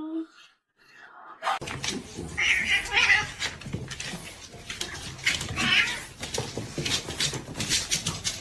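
A domestic cat meowing and yowling, with two louder drawn-out calls a few seconds apart over a noisy, scuffling background.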